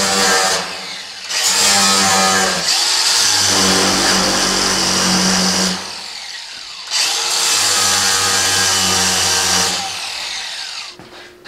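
Angle grinder with an abrasive disc grinding along the edge of steel square tubing. It comes in several runs of a few seconds each with brief dips between them, and trails off near the end.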